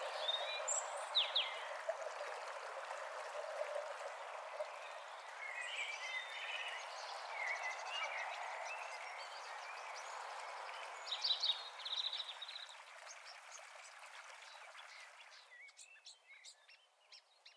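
Outdoor ambience: a steady background hiss with scattered bird chirps, including a quick run of chirps about eleven seconds in. It fades out near the end.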